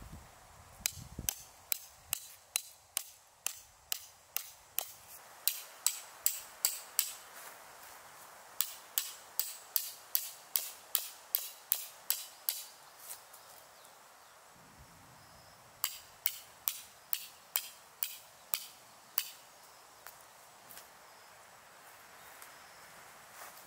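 A hammer driving tent pegs: quick runs of sharp, ringing blows, about three a second, with short pauses between the runs.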